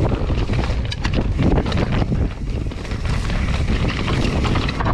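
Mountain bike rolling fast down a dry dirt singletrack, heard as heavy wind buffeting on the microphone with a constant clatter of small knocks and rattles from the tyres and bike over the rough ground.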